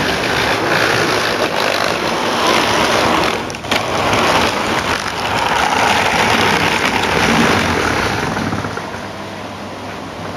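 Model train running on the layout's track: a continuous rolling rattle and motor whirr that swells and eases, with a brief dip and click about three and a half seconds in, then fades toward the end.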